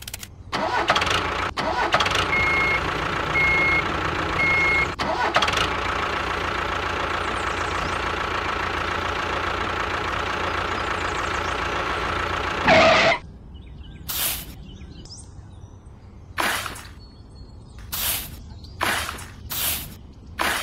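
Tractor engine running steadily, with three short beeps a few seconds in. It stops about 13 seconds in, and then a small spoon scrapes and drops powder about six times.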